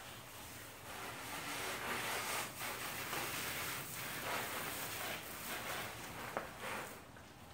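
Water spraying from a garden hose onto a car and the paved driveway: a steady hiss that stops near the end, with one brief click shortly before it stops.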